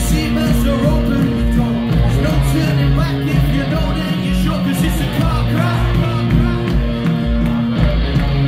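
Indie rock band playing live through a loud venue PA: guitars, sustained bass notes and a steady kick-drum beat with cymbals, with singing over the top.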